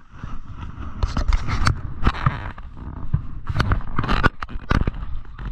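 Irregular scraping and knocking with sharp clicks, several strokes a second and growing louder about a second in.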